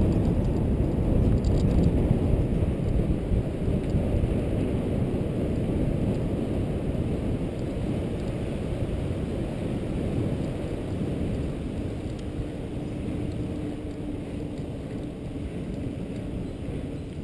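Wind buffeting the microphone of a helmet-mounted camera, mixed with the tyre rumble of a mountain bike rolling along a paved lane; the rumble slowly gets quieter toward the end.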